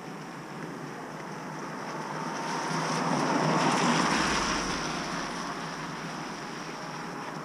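A car driving past, its sound swelling and fading over a few seconds and loudest about four seconds in.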